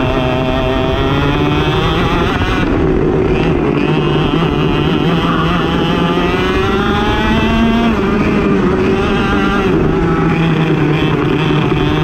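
Racing kart engine running hard, its pitch climbing as it accelerates and dropping sharply as it lifts, several times over.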